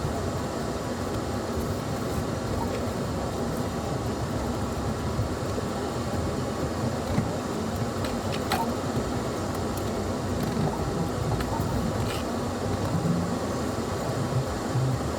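Off-road vehicle driving on a dirt trail: steady engine and tyre rumble, with a few sharp knocks or rattles over the bumps.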